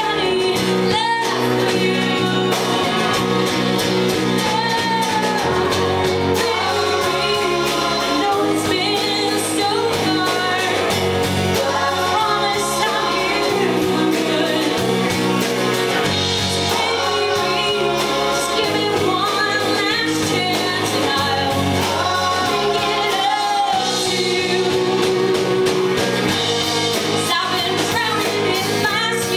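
Live band performing a song, with a lead vocalist singing over a bass line that shifts every second or two.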